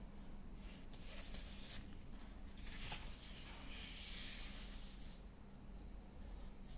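Felt-tip marker pen scratching across paper in short strokes as a drawing is outlined, the longest stroke about halfway through.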